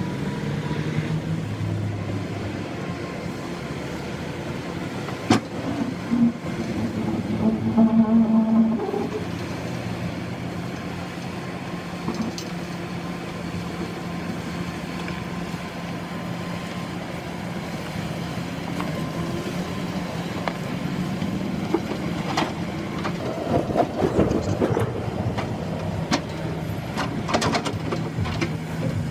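A vehicle engine running steadily, with a few sharp knocks and clatters, most of them near the end.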